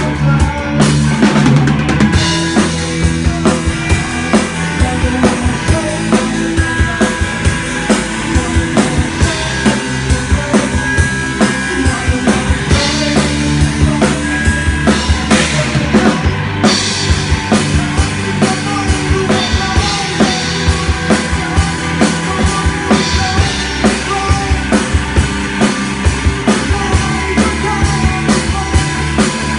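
Rock band playing, with a drum kit keeping a steady, busy beat of bass drum and snare over held bass and guitar notes.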